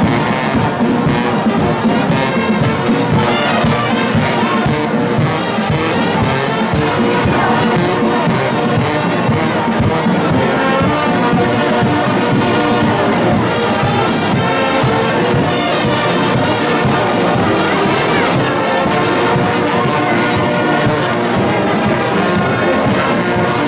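Brass band playing, with trombones and trumpets to the fore.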